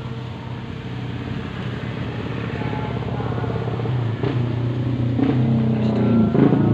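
Motorcycle engine running steadily and growing louder, with a few short knocks in the second half.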